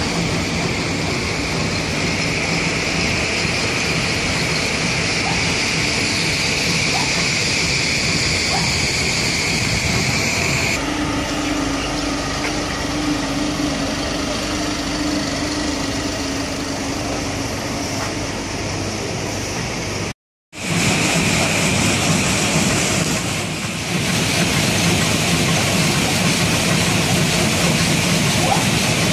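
Steady, loud din of stone-cutting machinery in a granite yard. It changes abruptly about eleven seconds in, when a steady hum joins for several seconds, and it breaks off for a moment about twenty seconds in.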